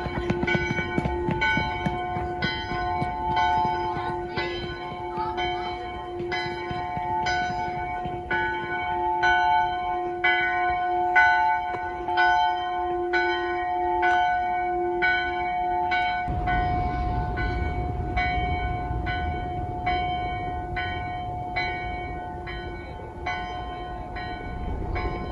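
Church bells ringing, a steady run of strikes at roughly two a second over their lingering hum. A low rumble joins about two-thirds of the way through.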